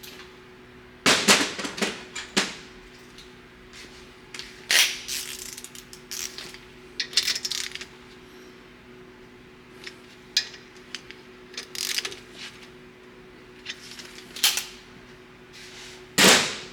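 Metal hand tools and parts clinking and clanking at irregular moments, with louder clanks about a second in and near the end, over a faint steady hum.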